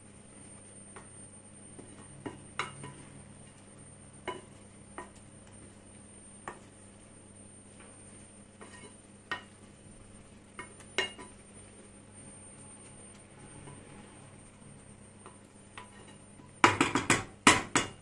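Spoon stirring shredded cabbage in a cooking pot, with scattered light clinks of the spoon against the pot, then a quick run of louder clanks near the end.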